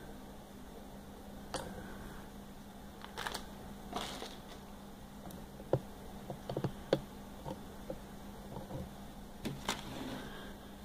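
Light, scattered clicks and taps of small plastic toy figures and packaging being handled on a wooden tabletop, over a faint steady hum.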